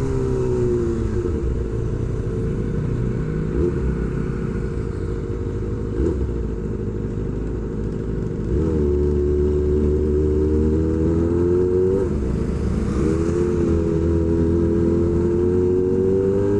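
Kawasaki Ninja ZX-25R's inline-four engine through an SC Project H2 exhaust under way at steady revs. It eases off just after the start, opens up again about halfway through, then dips and picks up once more a few seconds later.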